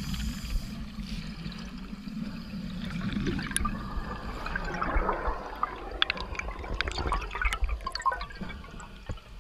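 A scuba diver's breathing gear heard underwater: gurgling and bubbling, with a crackle of small clicks and ticks from about three seconds in.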